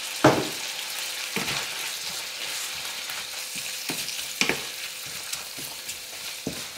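Ground beef and onions sizzling as they brown in a frying pan, stirred with a wooden spatula that knocks and scrapes against the pan about five times.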